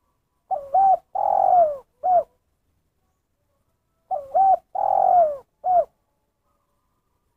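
Spotted dove cooing. It gives two three-part phrases about three and a half seconds apart, each a short bent note, then a long falling coo, then a short closing note.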